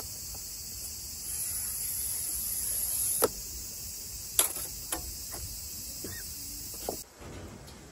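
A glass cutter scoring a pane of glass along a metal straightedge: a high scratching hiss for about two seconds, ending in a sharp click, then a few more sharp clicks. Insects drone steadily behind, cutting off abruptly about a second before the end.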